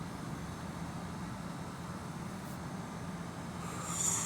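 Steady low hum of outdoor background noise, with a brief swell of hiss near the end.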